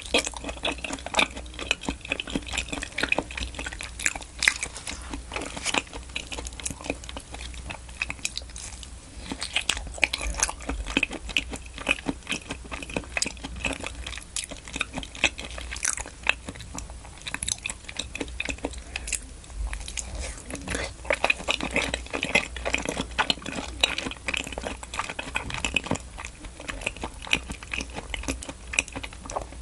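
Close-miked chewing and biting of salmon in onion cream sauce: a steady stream of soft, wet mouth clicks and smacks.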